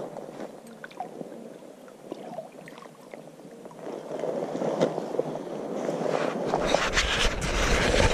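Splashing water as a hooked king salmon thrashes at the surface close to the bank, getting louder after the first few seconds. In the last second or two, rustling and a low rumble of handling noise on the camera come in as the angler moves.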